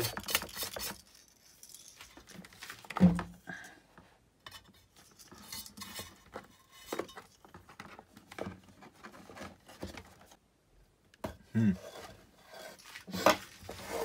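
Plastic and metal parts of a small space heater being handled during disassembly: scattered clicks, knocks and clatter, the loudest knock about three seconds in and a denser patch of clatter near the end.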